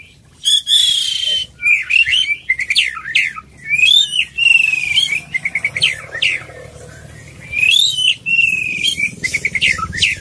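Caged oriental magpie-robin (kacer) singing: a run of loud, varied whistled phrases with sliding notes and rapid trills, broken by a pause of about two seconds a little past the middle.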